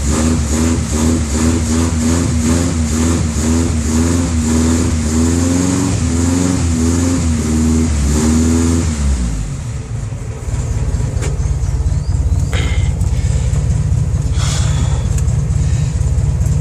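Jeep Willys' Chevrolet Opala four-cylinder engine, breathing through a 4-into-1 header, 2-inch pipe and turbo muffler. It is held at raised revs with a regular wavering, then drops back about nine seconds in and settles into a low, steady idle rumble.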